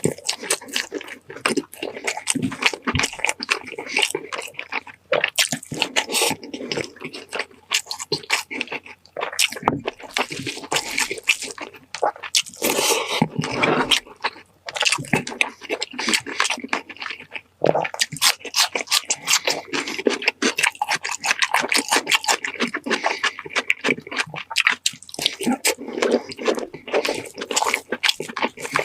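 Close-miked eating sounds: a constant run of wet chewing, smacking and squishing clicks.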